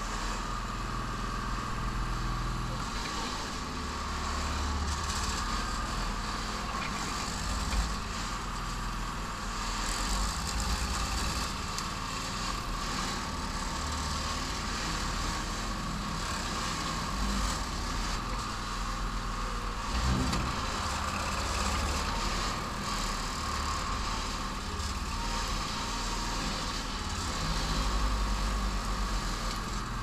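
Engine of a homemade backhoe running steadily while the boom and bucket dig, with a steady high whine over the engine sound. The engine swells a little now and then as the hydraulics take load.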